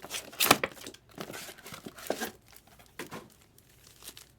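Trading card pack wrappers crinkling and tearing, with cards being handled, in a run of irregular crackles and rustles; the loudest crackle comes about half a second in.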